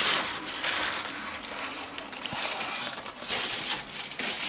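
Aluminium foil crinkling and crumpling as it is pulled and squashed together by hand: an irregular rustle with sharp crackles.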